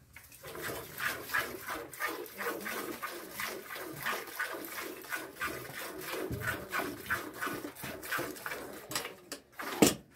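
Milk squirting from a cow's teats into a pail as she is milked by hand, in a quick, steady rhythm of strokes. A sharp knock near the end is the loudest sound.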